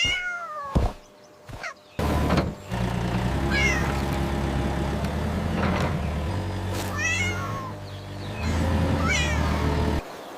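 A cat meowing about five times, high calls that glide up and down. From about two seconds in, a steady low hum runs under the meows and stops just before the end.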